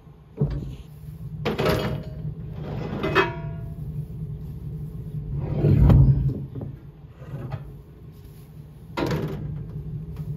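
Heavy steel weight brackets and wheelie-bar parts clanking and scraping against each other and the pickup bed as they are handled. There are several metal knocks, one with a brief ring about three seconds in, and the heaviest thud comes about six seconds in, over a steady low hum.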